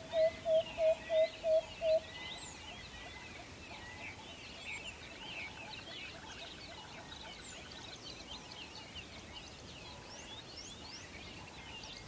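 Many small birds chirping and twittering together, with a loud run of short hooting notes, about three a second, that stops about two seconds in.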